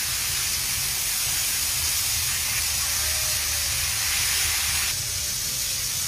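Beef steak sizzling in a stainless steel skillet over a gas flame: a steady hiss of searing meat and fat, over a low steady rumble. The sizzle softens about five seconds in.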